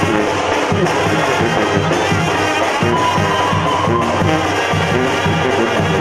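Live banda sinaloense playing: trumpets and trombones over a sousaphone bass line, with drums keeping a steady beat.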